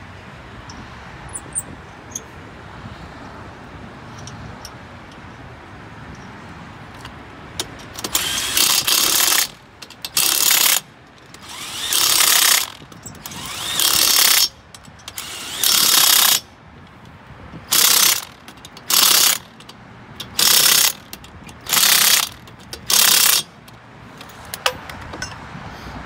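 Cordless impact wrench on a socket extension tightening lug nuts onto a spare wheel, in about ten short bursts starting about a third of the way in; the later bursts are shorter.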